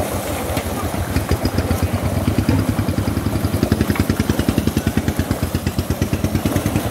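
A small engine running steadily with a fast, even thudding beat of about ten strokes a second, over the splashing of fish thrashing in a seine net.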